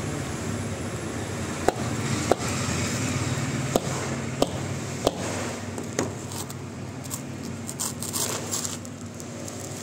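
A whole coconut in its husk being struck against a concrete floor: six sharp knocks, irregularly spaced over the first six seconds. Then the fibrous husk is torn and pulled apart by hand, with crackling, ripping sounds.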